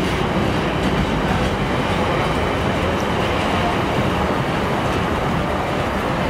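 Container freight train's flat wagons rolling past on the rails, a steady noise of wheels on track that eases slightly near the end as the last wagons draw away.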